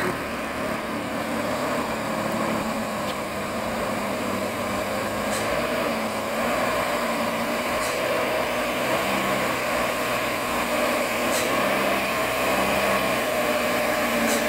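Truck engine running steadily, growing slowly louder as it approaches.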